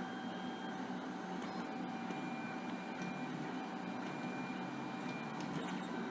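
3D printer running: a steady mechanical hum with thin, high whine tones that come and go.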